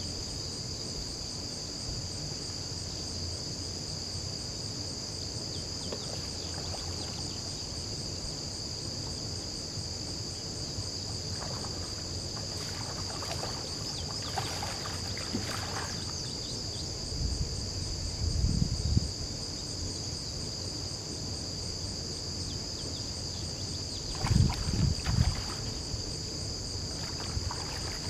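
Insects buzzing steadily, with a hooked bighead carp thrashing and splashing at the surface in bouts about halfway through and again near the end, the loudest splashes near the end.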